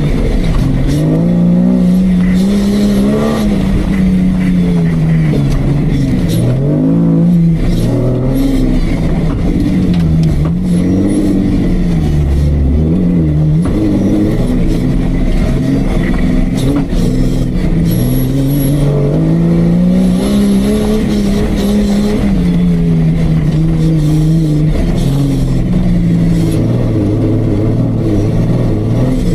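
Off-road jeep engine under hard, changing load, its pitch climbing and falling again and again as the throttle is worked, with several quick dips in the middle and one long climb in the second half.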